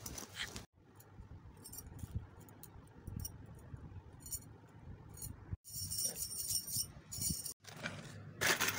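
Stacked bangles clinking and jingling against each other in short bursts, busiest about six to seven seconds in.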